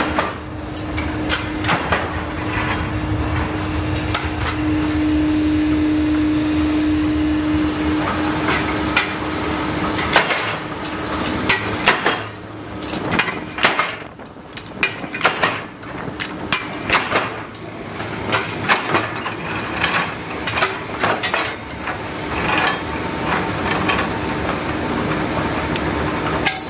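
Irregular metallic clanks and knocks as hot steel blanks are handled with tongs and run through a rolling mill, over a steady machine hum that drops away after about ten seconds.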